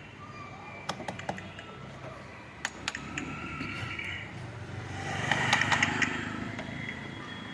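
A few sharp metallic clicks and taps, as tools work loose a corrosion-crusted car battery terminal, in two small clusters about one and three seconds in. Near the end a broad rush of noise swells and fades, the loudest sound.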